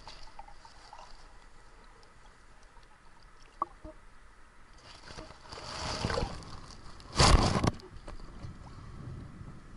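Muffled underwater water noise, then water rushing and one loud splash about seven seconds in as the camera breaks the surface of the river.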